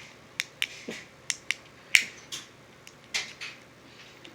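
Plastic push-buttons on a fidget pad clicking as they are pressed: about ten short, sharp clicks at an uneven pace.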